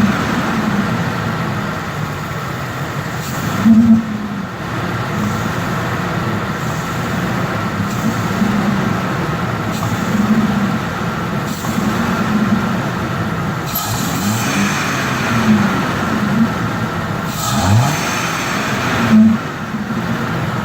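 Ford 4.6 L V8 of a 2002 F-150 revved and let back down several times, with a strange noise from the intake as the engine decelerates off the throttle; the cause is unknown to the owner.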